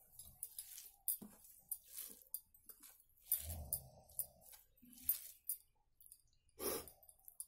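Fingers mixing and squeezing rice with fish sour curry on a steel plate: irregular soft squelches, small clicks and scrapes of fingers on the metal, with a louder sound near the end.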